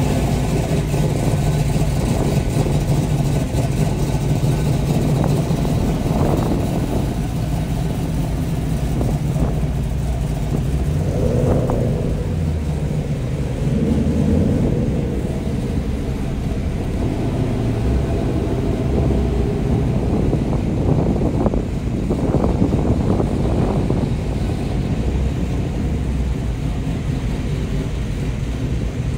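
Car engines running, a steady low rumble with a few brief swells as engines rev.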